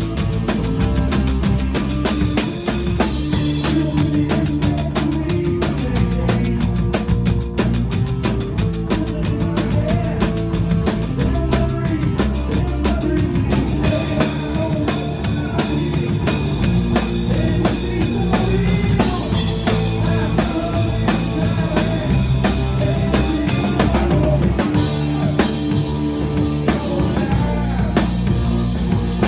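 Live rock band playing an instrumental passage: drum kit with a steady beat, bass and guitar.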